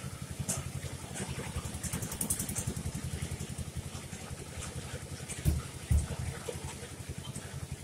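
An engine idling nearby with a steady, fast, low chugging. Two dull thumps about two-thirds of the way through.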